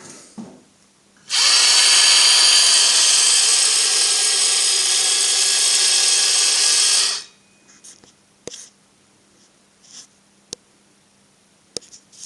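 A handheld power tool running steadily for about six seconds, starting and stopping abruptly, followed by a few faint clicks.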